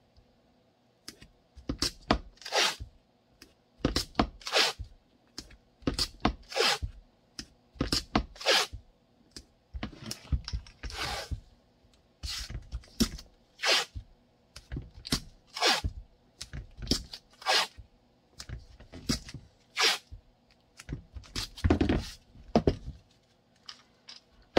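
Hands working blocking material at a workbench: an irregular run of short tearing, crunching scrapes, more than one a second.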